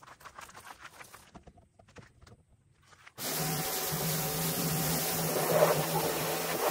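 Quiet at first with a few faint light clicks, then about three seconds in a pressure washer starts abruptly and runs steadily: a motor hum under the hiss of the water jet spraying the tractor.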